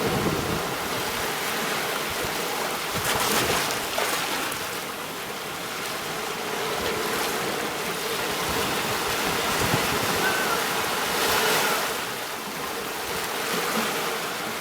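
Sea waves washing onto a shore in a steady rush, swelling about three seconds in and again about eleven seconds in.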